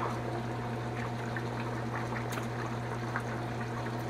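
Chicken noodle soup being ladled from a steaming pot into a bowl: liquid pouring and dribbling, with a few light ticks of a wooden ladle against the pot and bowl, over a steady low hum.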